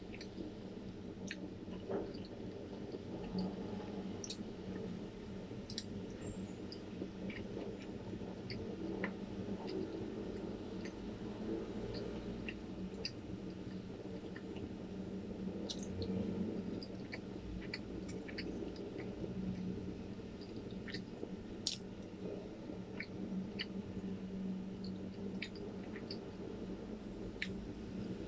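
Close-up chewing and soft, wet mouth sounds, with scattered small sharp clicks throughout.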